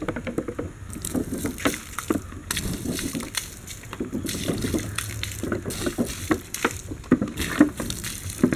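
A milky fire-retardant liquid pours from a plastic bottle and splashes onto burning petrol-soaked wood and the earth around it, with irregular spatters.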